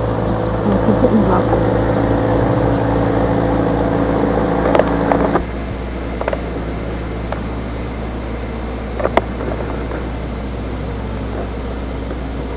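A steady machine-like hum with several tones, dropping in level about five and a half seconds in, with a few faint clicks.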